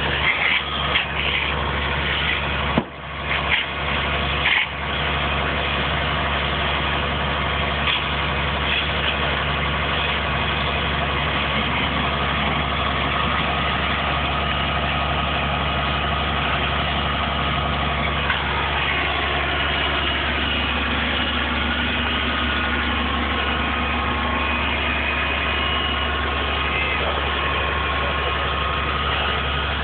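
Vehicle engine running steadily with a constant low hum, with a few knocks and dropouts about three to five seconds in.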